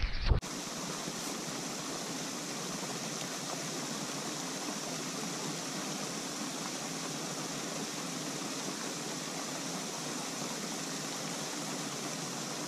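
Steady rushing hiss of water from a pond fountain spraying, beginning abruptly about half a second in and holding even throughout.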